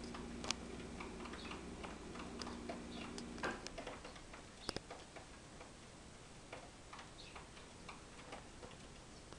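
Faint, irregular light ticks and taps, typical of small birds pecking at rice on a window ledge, over a steady low hum that stops about three and a half seconds in.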